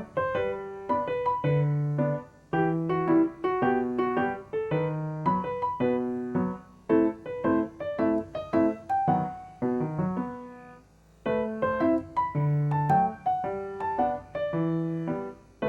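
Background music: solo piano playing a melody with chords at a steady pace, pausing briefly about ten seconds in.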